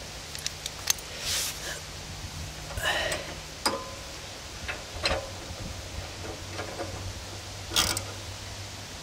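Metal-on-metal clinks, clicks and short scrapes from a wrench and a three-jaw bearing puller as the puller's screw is tightened to draw a stuck bearing race off a trailer axle; the sounds come at irregular moments rather than in a steady rhythm.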